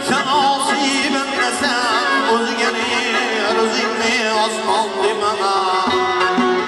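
Live Central Asian folk music: a man singing with wavering vibrato, accompanied by a plucked long-necked lute, a bowed fiddle held upright and a frame drum. The singing line is most prominent in the first five seconds, and the instruments carry on underneath without a break.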